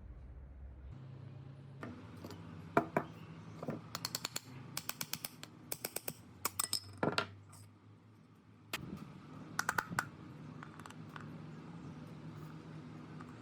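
Metal parts of an old paint spray gun being handled, clinking and tapping together in a quick run of sharp clicks with brief ringing, with a pause of about a second near the middle.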